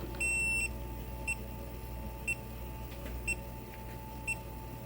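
Electronic controller on a lathe beeping: one longer high beep near the start, then short beeps about once a second, over a steady electrical hum.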